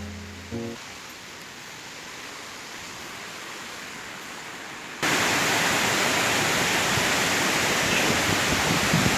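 Waterfall rushing, a steady even hiss that jumps abruptly louder about five seconds in.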